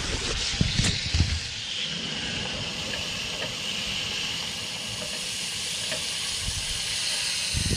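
Fish frying in hot oil in a pan, sizzling with a steady hiss. A few light knocks sound in the first second or so.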